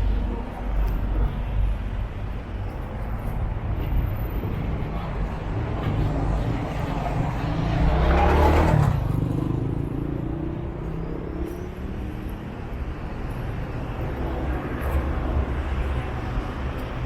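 City road traffic: a steady rumble of vehicle engines, with one vehicle passing close about eight seconds in, the loudest moment.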